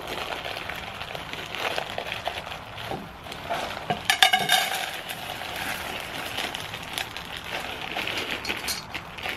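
A spoon clinking and scraping in a small metal camp cook pot over a steady hiss, with one brief ringing scrape about four seconds in, the loudest sound here.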